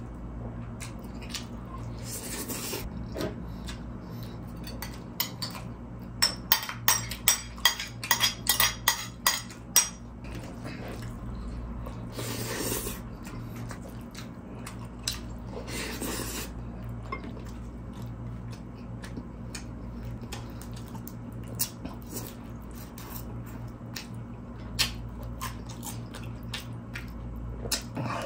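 Close-miked eating: chewing of fried spring rolls and Bicol Express, with a fork clinking and scraping against a ceramic bowl. About six seconds in comes a quick irregular run of about a dozen sharp clicks, with single clicks scattered later, over a steady low hum.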